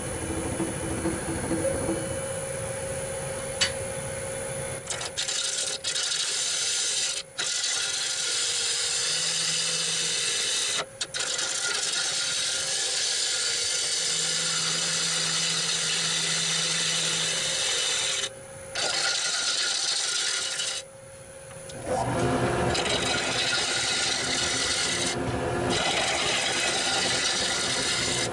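A bowl gouge cutting into a spinning walnut bowl blank on a wood lathe: a steady scraping of shavings coming off, with a few short breaks where the tool lifts off the wood, and the lathe humming underneath. This is the first cut on the out-of-round blank, taking off the chainsaw marks.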